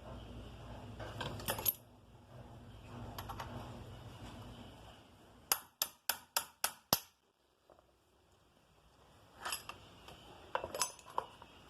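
Metal tools and small engine parts clinking while a two-stroke engine is taken apart. In the middle there is a quick run of six sharp metallic taps, with scattered light clinks before and after.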